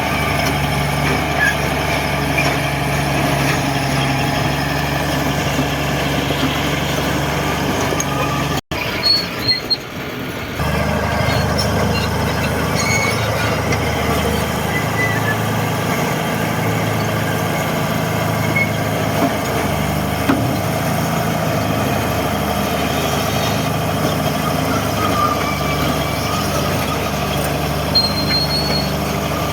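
Old Komatsu bulldozer's diesel engine running steadily, with occasional short high squeaks. It drops out suddenly about a third of the way in, a couple of louder knocks follow, and then the engine sound resumes.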